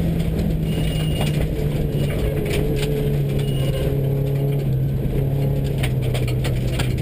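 Subaru rally car heard from inside the cabin, its engine running at a steady pitch that sinks slightly as it drives on a gravel road, over a gritty rumble of tyres on gravel with scattered clicks and rattles.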